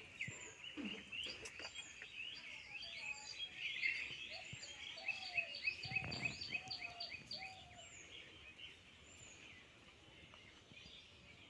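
Several small birds chirping and calling together, a busy chatter of quick high chirps and short whistled notes, with a lower call repeated four or five times in the middle; the chatter thins out after about eight seconds.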